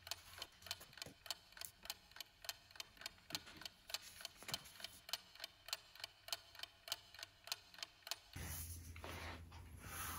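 Clock ticking evenly, about three ticks a second. A little past eight seconds the ticking stops and a louder, steady rushing noise with a low hum takes over.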